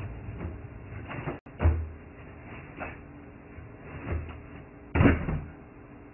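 A person's body landing and falling on a thin mattress laid on a carpeted floor: several separate dull thuds, the loudest about five seconds in.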